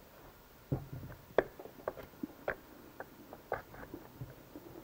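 Needle-nose pliers and a steel coil spring clicking and tapping against the brake lever and metal parts of a riding-mower CVT transaxle as the brake lever spring is hooked into place. The sound is a string of light, irregular metal clicks beginning about a second in.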